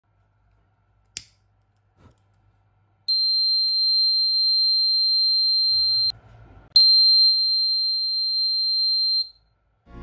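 Piezo buzzer of a homemade LPG gas detector sounding its alarm: a steady, high-pitched single tone in two long blasts of about three seconds each, with a short break between. A sharp click comes about a second in.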